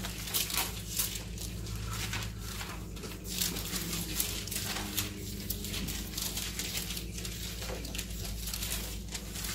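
Thin Bible pages being leafed through by hand: soft rustles and flicks at irregular intervals, over a steady low hum.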